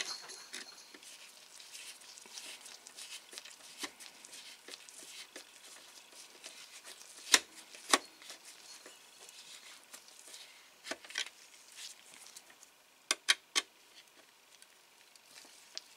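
Small hand screwdriver turning a tiny screw into a model car's engine-bay side panel: faint scraping and handling noise, with scattered sharp clicks of the tool against the screw and panel, two about halfway through and three in quick succession near the end.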